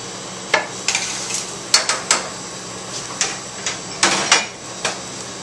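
Light, scattered clatters and knocks of kitchen dishes and utensils being handled, about a dozen in all with a quick cluster about four seconds in, over a steady ventilation hum.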